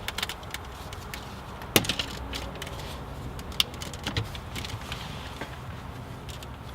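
Plastic interior trim being pried up with a plastic trim tool: scattered clicks, creaks and snaps as the centre console panel is worked loose, with a sharp snap about two seconds in and another near the middle.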